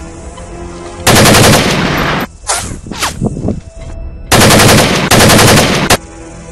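Bursts of automatic gunfire sound effects, three rapid-fire volleys: one about a second in that lasts just over a second, then two back-to-back near the end. A few short falling whistles sound between the first and second volleys.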